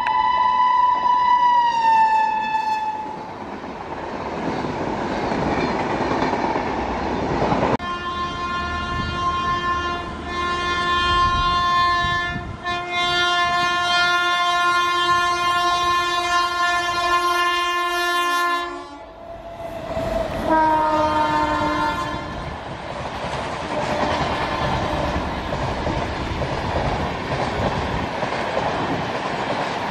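WAP-7 electric locomotive's horn sounding as an express approaches at speed: a short blast whose pitch falls, a long blast of about ten seconds with a brief break, and another short blast falling in pitch as the locomotive passes. Between and after the blasts, the rumble and clickety-clack of the coaches running past.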